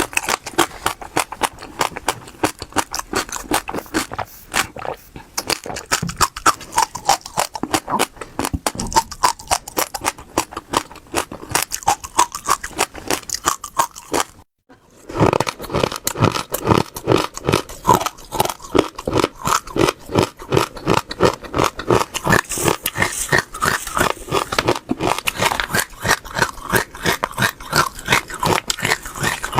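Close-miked mouth chewing seeds: a dense run of crisp crunches and crackles, several a second, broken once by a brief silence about halfway through.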